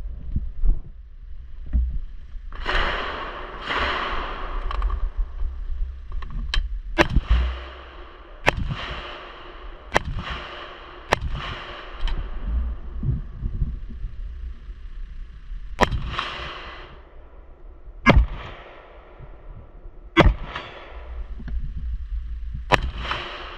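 Gunshots on an outdoor shooting range: about a dozen single shots, irregularly spaced one to a few seconds apart, several trailing off in long echoes.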